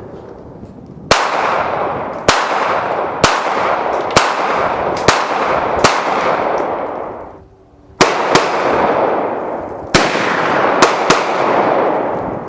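Gunshots at an outdoor shooting range: a string of about six shots roughly a second apart, a short pause, then several more at uneven spacing. Each shot is followed by a long rolling echo.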